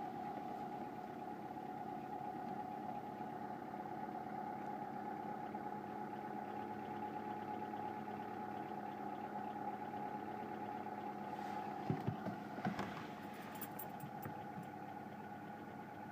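Seat Ibiza 6L's 1.4 16V four-cylinder petrol engine idling steadily, carrying the clacking and rattling that the owner is trying to make heard as a fault. A few sharper knocks come about three-quarters of the way through.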